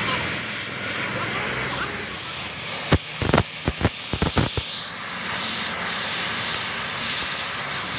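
Oxy-fuel torch flame hissing steadily against the steel trunnion bracket of a truck suspension, with a quick run of about ten sharp pops in the middle.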